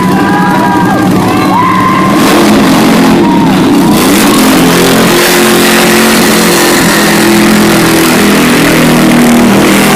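A loud vehicle engine revving hard, its pitch stepping up and down. A high, squealing tone bends in and out during the first couple of seconds.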